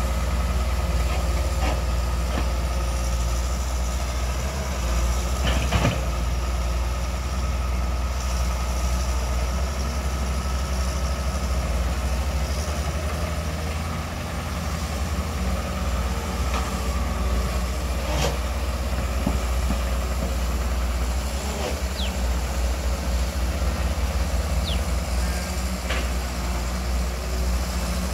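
Excavator's diesel engine running steadily with a deep drone, and a sharp clank about six seconds in and again about eighteen seconds in.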